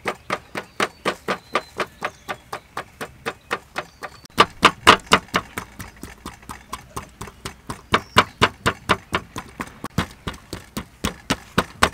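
Rapid, even tapping of a hand-held pin tool jabbing into the skin of raw pork belly on a metal tray, about five or six strokes a second, a little louder about four seconds in. The rind is being pricked all over so that it crisps when the pork is cooked.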